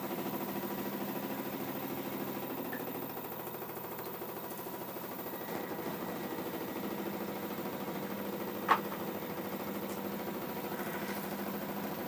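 LG F12A8CDP direct-drive washer-dryer running with a steady hum that pulses evenly. A single sharp click sounds about two-thirds of the way through.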